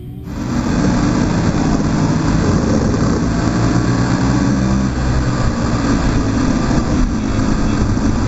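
Rotax Max 125cc single-cylinder two-stroke kart engine running at racing speed, heard from an onboard camera on the kart, with other karts close by. The engine sound cuts in abruptly just after the start and then holds steady.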